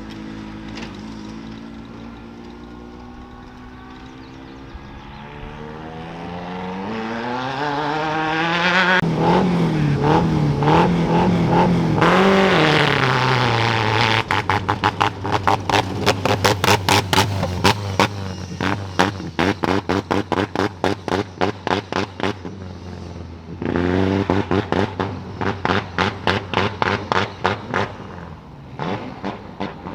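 Off-road race vehicle engines: one engine rises in pitch and is revved hard, its pitch wavering, then a loud, even pulsing engine note at about three beats a second, with a short break about two-thirds of the way through.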